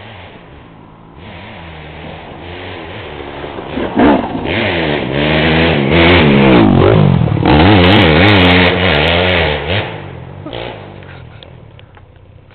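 KTM enduro motorcycle engine revving up and down in quick swings, building up about four seconds in, loudest for several seconds, then dying away near the end.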